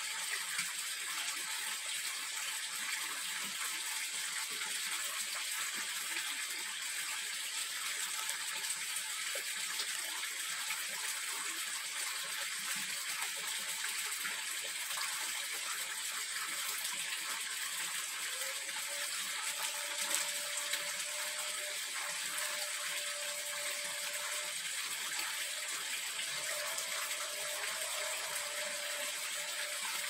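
A steady, even hiss like running water, with no distinct events; a faint thin steady tone comes in a little past halfway and holds to the end.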